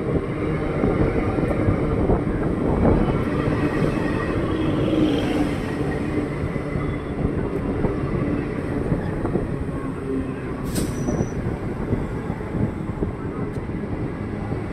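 Electric multiple-unit suburban local train rolling slowly along the platform, its wheels rumbling and clattering on the track. A brief sharp hiss comes about ten seconds in.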